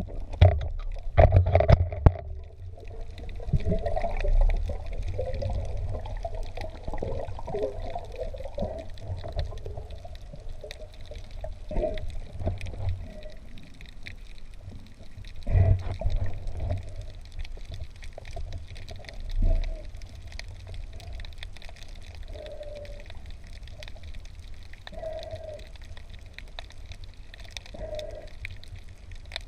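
Muffled water sounds heard underwater, gurgling and sloshing over a low rumble, with a warbling stretch early on and several separate surges of water noise.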